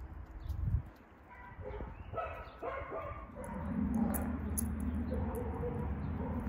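A dog vocalizing in a quick run of short, pitched calls between about one and three seconds in. A steady low hum then sets in and is the loudest sound.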